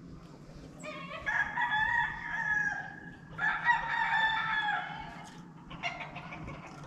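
Rooster crowing: two long crows, one right after the other, the first starting about a second in.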